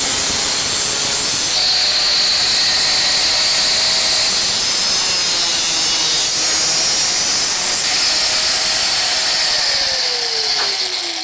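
Angle grinder cutting sheet metal: a loud, steady grinding hiss. Near the end the grinder is let off and its tone falls smoothly as the disc spins down.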